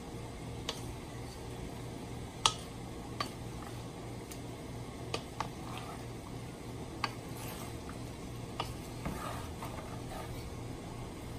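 A wooden spoon stirring chicken and vegetables in a large metal pot, with scattered sharp knocks of the spoon against the pot. The loudest knock comes about two seconds in. A steady low hum runs underneath.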